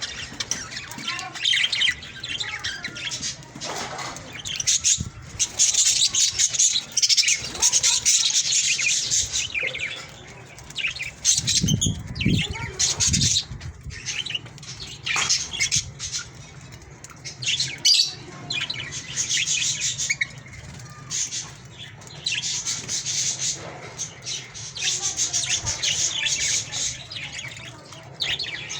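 A group of birds chirping and squawking in a dense, high-pitched chatter that comes in repeated bursts.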